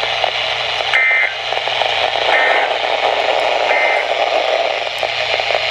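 Emergency Alert System end-of-message signal: three short, buzzy two-tone data bursts about a second and a half apart, beginning about a second in, over steady weather-radio static.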